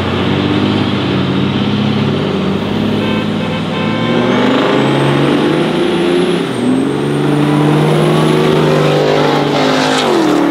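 Pickup trucks drag racing, a compound-turbo diesel against a single-turbo gas truck, accelerating hard. The engine pitch climbs and drops back about three times as they shift gears, with a high turbo whistle rising over it, then falls steeply as a truck passes close near the end.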